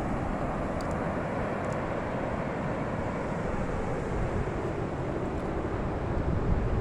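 Steady rushing outdoor noise with a low rumble, swelling and growing gustier near the end.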